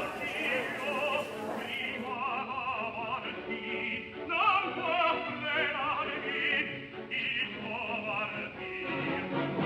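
Operatic singing with a strong, wide vibrato over classical accompaniment, playing as background music.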